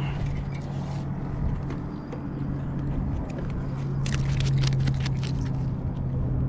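A steady low hum runs under a rumbling background. About four seconds in there is a quick run of clicks and scrapes as a fish and fishing line are handled.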